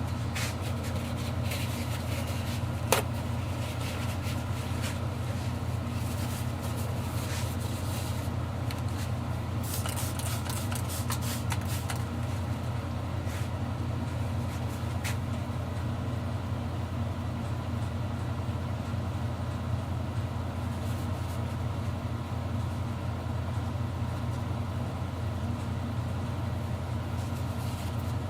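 Steady low machine hum throughout, with scattered small clicks and knocks of handling on the workbench. The loudest is a single sharp knock about three seconds in, and a cluster of clicks comes around ten to twelve seconds in.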